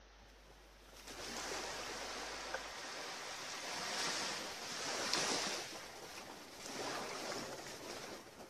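Ocean surf washing ashore, starting about a second in and swelling and easing as the waves break.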